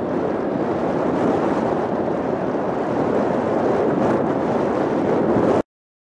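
Steady rush of wind on the microphone and small waves lapping in shallow sea water, cutting off suddenly near the end.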